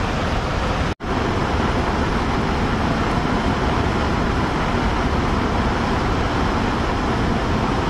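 Floodwater rushing down the open spillway of Rawal Dam and churning below: a steady roar of water. It drops out for an instant about a second in.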